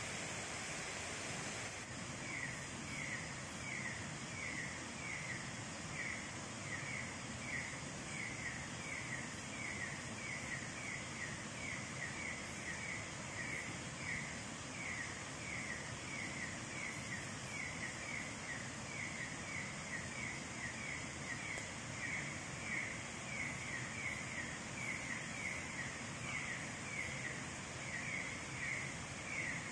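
Night jungle ambience: a steady hiss with a small creature chirping in a regular rhythm, about two chirps a second, starting about two seconds in.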